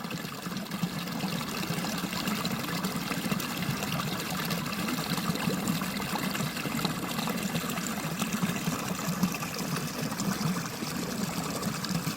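Steady trickling, running water with faint scattered drips.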